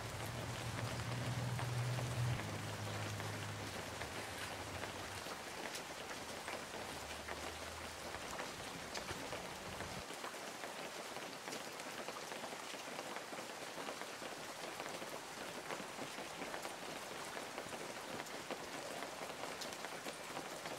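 Steady rain pattering, an even hiss of drops. A low steady hum sits underneath and cuts off abruptly about halfway through.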